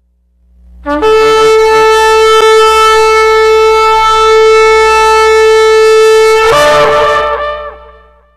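A shofar blown in one long, steady, held blast, then breaking into a wavering, quavering flourish before fading out.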